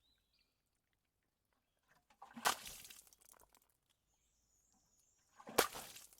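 Water splashing onto concrete twice, about three seconds apart, each a sudden splash trailing off over about a second.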